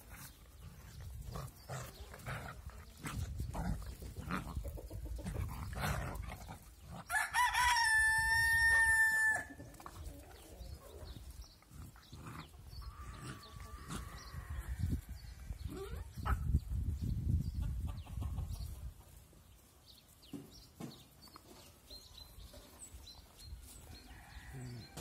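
A rooster crows once, a single long call of about two seconds a third of the way in; it is the loudest sound here. Around it, puppies wrestle on grass with soft scuffles, rustling and low rumbling noise, and a fainter, shorter call comes about halfway through.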